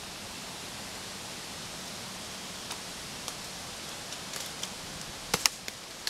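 Dry fallen leaves and twigs crackling underfoot in a scatter of sharp clicks through the second half, loudest about five seconds in, over a steady outdoor hiss.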